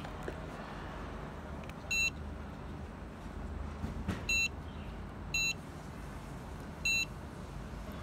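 Keypad beeps from a DIGITEN water flow quantitative controller as its buttons are pressed to set the dose: four short, high-pitched beeps spread over about five seconds, the first about two seconds in.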